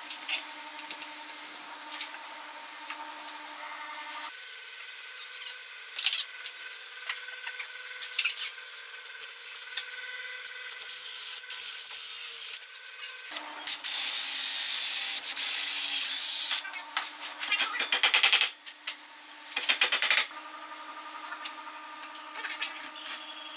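Cordless drill boring twice through a dowel jig's steel guide bushing into a wooden board, each time for about two seconds, with sharp knocks and clicks of the jig and workpiece being handled before and between.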